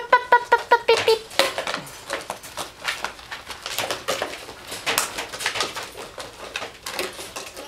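Puppies chewing and batting empty plastic water bottles, giving irregular crinkling crackles and sharp clicks throughout. In the first second there is a quick run of rapid pitched pops.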